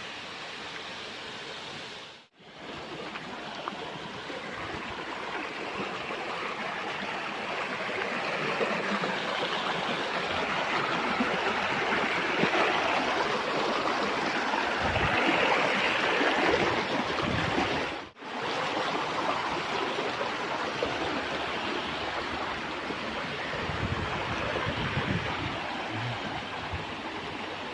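Waterfall water rushing steadily, an even roar that swells somewhat in the middle and drops out briefly twice, about two seconds in and again around eighteen seconds in.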